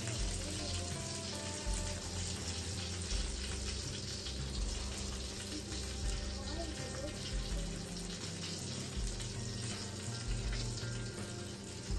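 Steady sizzling from a hot roasting pan of baked trout just out of the oven, its juices still spitting on the foil.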